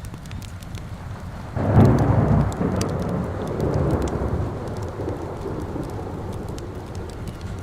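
A thunderclap about one and a half seconds in, rumbling and slowly fading, over steady rain. A fire crackles in the background with scattered sharp pops.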